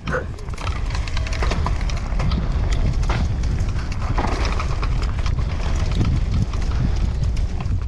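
Mountain bike rolling fast over dry fallen leaves and dirt: a steady crackle of leaves under the tyres with frequent short clicks and rattles from the bike over bumps, over heavy wind rumble on the camera's microphone.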